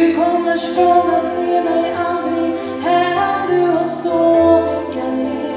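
A woman singing a slow song live into a microphone, with long held notes and new phrases starting about every three seconds.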